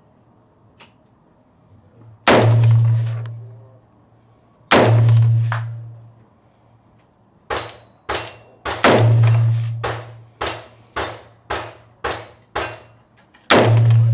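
Gunfire at a covered rifle range: four very loud rifle shots, each with a deep boom and a ringing echo that dies away over about a second, and between them a quicker string of about eight lighter shots, roughly two a second, from about seven seconds in.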